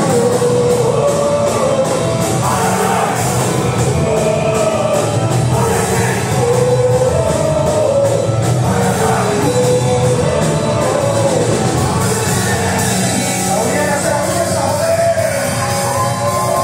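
Live punk band playing loud: drums driving a fast, steady beat under electric guitars, with a voice singing the melody over them, heard from within the crowd in a club.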